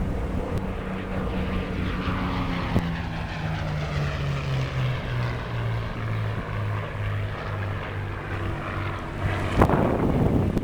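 Propeller engine of a V-12 piston-engined WWII fighter in flight, its note dropping steadily in pitch as it passes and then holding steady as it draws away. A short, loud rush of noise comes near the end.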